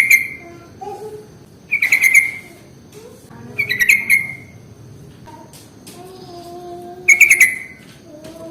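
Yellow-vented bulbul (trucukan) calling: four short, loud bursts of rapid bubbling notes, with fainter lower whistled notes between them. It is a lure recording of the kind used to set other bulbuls singing.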